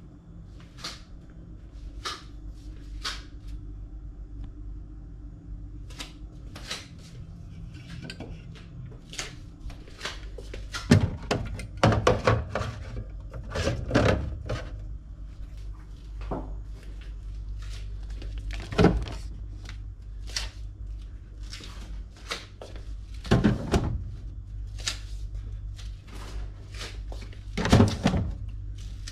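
Containers and fridge drawers and shelves being put back into a refrigerator: an irregular run of knocks, clunks and clatters, the loudest about a third of the way in, around halfway and near the end.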